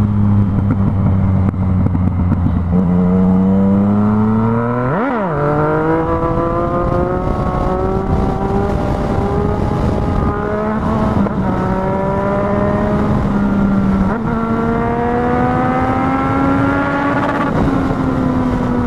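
Yamaha MT-09's three-cylinder engine pulling hard through the gears. Its pitch climbs steadily, then drops at each upshift, sharply about five seconds in and again three more times, over the rush of wind and road noise.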